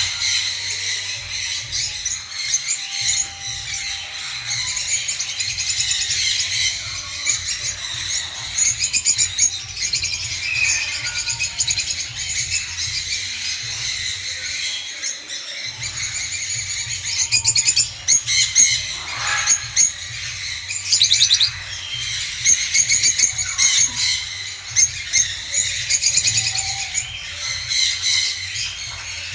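Small pet parrots chattering and chirping nonstop in shrill, overlapping calls, with a few louder calls about two thirds of the way in, over a low rumble.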